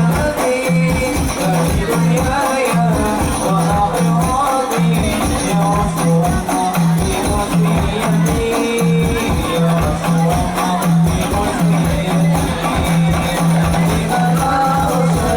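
Sholawat devotional music: a melodic vocal line over a steady, busy percussion rhythm with jingling hand percussion and a repeating low note.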